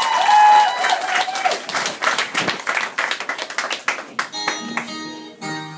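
Audience clapping with a cheer in the first second or so, the applause thinning out; about four seconds in, a guitar starts playing the opening notes of a song.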